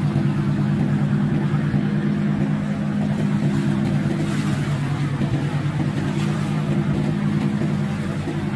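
Marine diesel engine of a large fishing boat running steadily under way, a low even drone.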